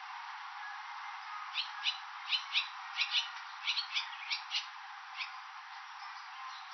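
Barn swallow calling: a quick run of about a dozen short, sharp chirps, some in close pairs, starting about a second and a half in and tailing off with a last single chirp, over a steady background hiss.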